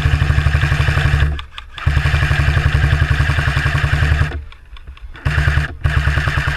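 Airsoft electric gun firing on full auto in long bursts: a fast, even rattle of the gearbox cycling. There are three or four bursts, the longest about two and a half seconds, with short breaks between them.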